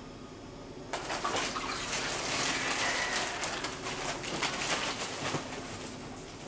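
Water splashing and dripping in an inflatable birth pool. It starts suddenly about a second in, as a newborn is lifted out of the water onto the mother's chest.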